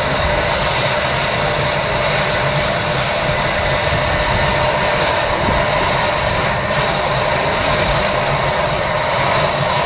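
CH-53 heavy transport helicopter running on the ground with its rotors turning: a steady turbine whine over a dense, uneven low rotor rumble.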